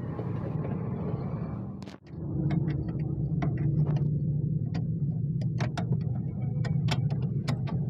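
Steady low drone of a running car, with about two seconds of different noise before a brief drop, then a scatter of irregular sharp clicks and knocks.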